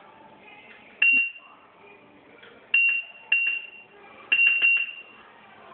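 Proliner 3D digitizer beeping as its stylus records points along the countertop edge. There are about six short, high beeps, each with a sharp start and a brief ring, and the last few come close together near the end.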